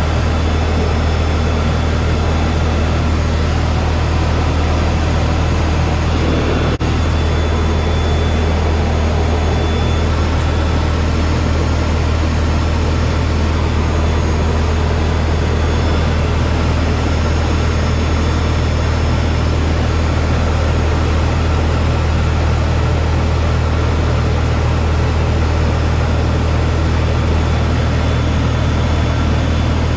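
Helicopter in cruise flight heard from inside the cabin: a steady low rotor-and-engine drone with a thin steady whine above it. There is a brief click about seven seconds in.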